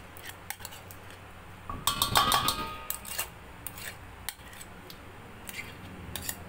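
Metal spoon scraping softened butter out of a glass bowl, with scattered light clinks of spoon on glass and on the steel mixing bowl. A denser clatter with a brief ring about two seconds in.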